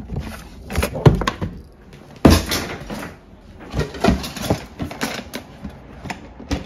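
Stacked plastic storage bins being pulled out and lifted: a run of hollow plastic knocks, scrapes and rustles, the loudest knocks about a second in and just after two seconds.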